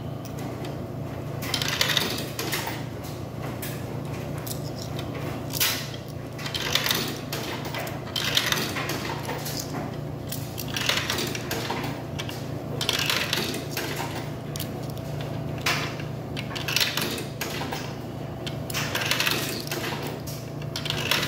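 Quarters fed one at a time into a soda vending machine's coin slot, each clinking down through the coin mechanism, one every second or two. A steady low hum runs underneath.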